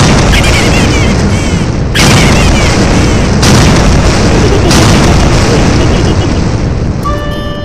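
Explosion sound effects: a series of four loud booms, one at the start and three more over the next five seconds. Each is followed by a long rumbling tail. High warbling tones run over the first few seconds.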